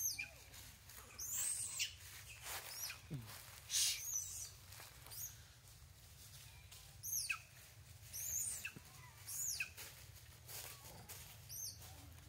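Birds chirping: about a dozen short, high calls at irregular intervals, each sliding quickly down in pitch.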